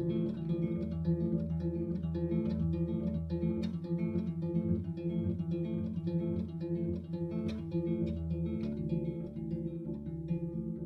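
Acoustic guitar music: a quick, repeating plucked figure.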